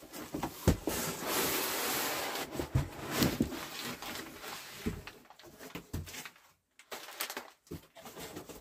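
Packing paper rustling and a cardboard box being handled as a paper-wrapped golf club is pulled out, with scattered knocks of the club and box being handled.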